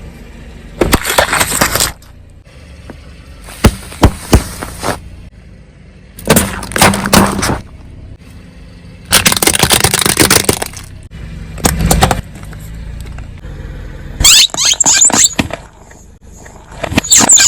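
Crunchy objects being crushed under a car's tyres: a series of loud cracking, breaking crunches, each lasting about a second, coming every two to three seconds.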